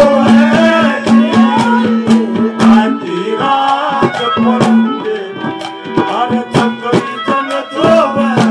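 Folk music interlude: a harmonium holding a steady low note under a gliding melody, with quick hand-drum strokes throughout.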